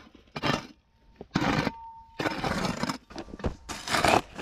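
Repeated scraping, crunching strokes of a hand tool working the ground, about one a second, with a faint metallic ring on a couple of the strokes.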